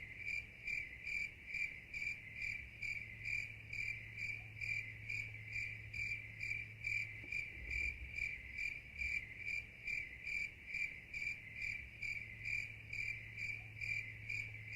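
A cricket chirping in a steady, even rhythm, a little over two chirps a second, over a low steady hum.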